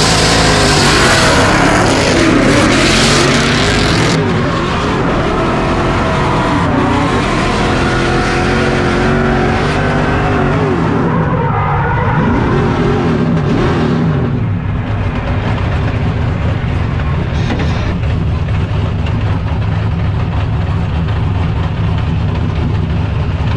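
Drift car's engine revving up and down hard, with tyre noise in the first few seconds. About two-thirds of the way in it settles to a steadier, lower running sound.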